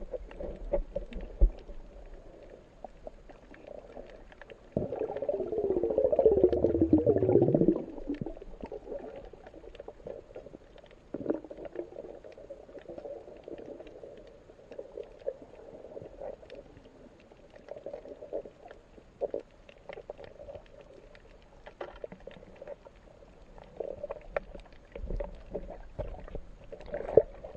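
Underwater sound as picked up by an action camera in its waterproof housing: a muffled, hollow water noise with many faint scattered clicks. About five seconds in it swells much louder for roughly three seconds, falling in pitch just before it fades.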